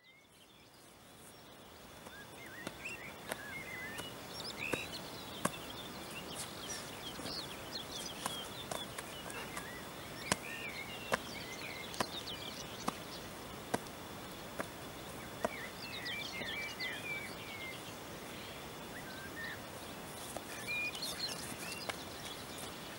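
Birds chirping and singing in open countryside, with a faint steady high tone underneath. Sharp taps come about once a second, footsteps on stony ground.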